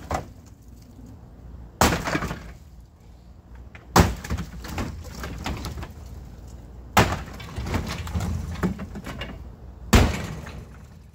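Sledgehammer blows smashing a doghouse apart: four heavy strikes a few seconds apart, each followed by a second or two of breaking and clattering debris.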